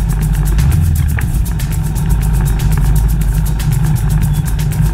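Motorcycle engine running under heavy low wind rumble, heard from a camera mounted on the bike.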